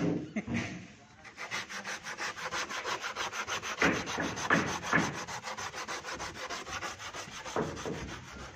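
Metal scraper blade scraping dried grey residue off the surface of a green GRC mould in quick, repeated strokes. A few heavier knocks come at the start.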